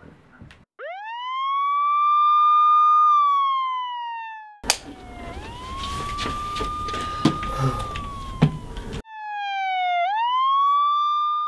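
Police siren wailing in slow cycles: the pitch rises, holds for a couple of seconds, then falls and swings back up. Through the middle stretch the siren is fainter, under a noisy bed with a few sharp knocks.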